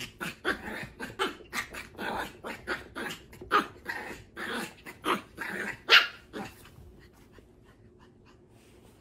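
Small puppy barking and yapping in a quick run of short, high barks, several a second, with the loudest near six seconds in. The barking stops about seven seconds in.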